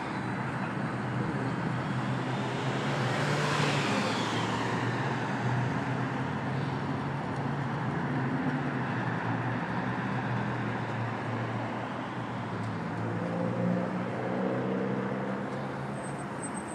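Road traffic on a street, a steady wash of noise with one vehicle swelling past about three to four seconds in.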